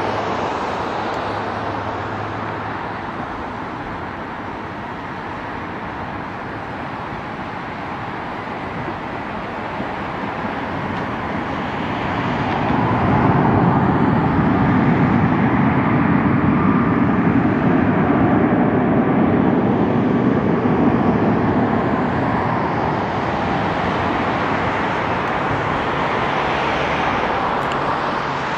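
Boeing 737 MAX jet engines (CFM LEAP-1B turbofans) running at low power as the airliner slows after landing and taxis off the runway. The steady rumble swells about twelve seconds in, stays louder for some ten seconds, then eases a little.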